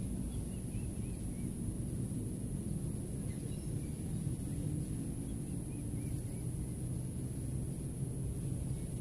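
Strong wind buffeting the microphone, a steady low rumble throughout, with a few faint bird chirps in the first half.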